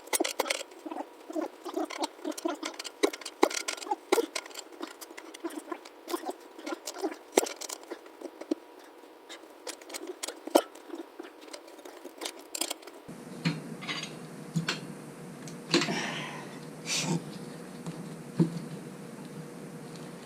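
Rapid small clicks and ticks of tire irons and rubber working a motorcycle tire bead over the rim on a tire-changing stand, followed after about 13 seconds by slower scraping and rubbing.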